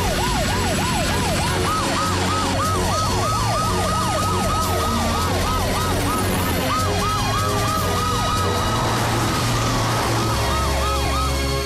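Cartoon emergency-vehicle sirens from the rescue team's ambulance, fire truck and helicopter. They wail in quick rise-and-fall sweeps, several overlapping at once, over steady background music.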